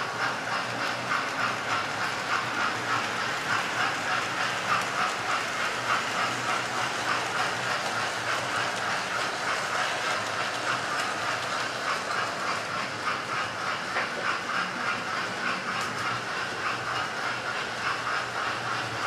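Several model trains running at once on the layout's track: a steady whirring hiss with a fast, even clatter of wheels over rail joints.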